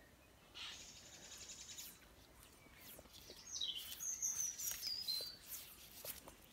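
A songbird singing: a rapid high trill, then a louder short phrase of falling high notes.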